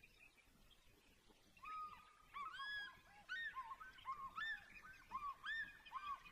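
A run of repeated bird calls, short arched notes at a few different pitches overlapping each other, like two or more birds calling together. It starts about a second and a half in and carries on until just before the end.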